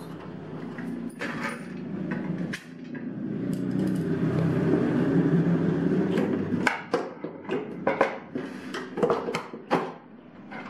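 A vinyl cutting plotter's plastic end cover and parts being handled during assembly. A few seconds of steady rumbling scrape come first, then a quick run of sharp plastic clicks and knocks as the cover and a screwdriver are handled.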